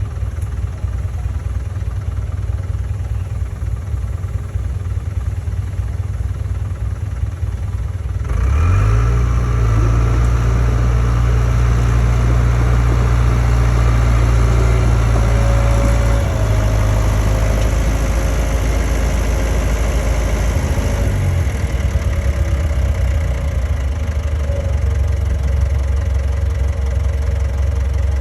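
Komatsu D31A bulldozer's diesel engine idling, then revving up about a third of the way in and holding at higher revs for several seconds before settling back to idle.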